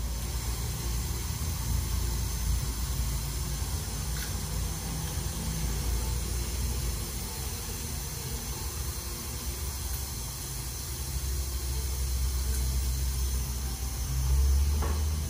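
Steady hiss over a low rumble from dental treatment equipment running, with a couple of faint ticks; the rumble swells briefly near the end.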